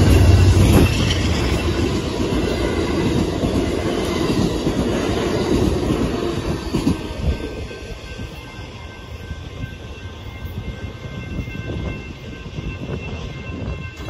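Amtrak passenger train, led by a diesel locomotive, passing close by over a grade crossing, its wheels rumbling and clattering on the rails; the noise falls away about seven seconds in as the last car goes by.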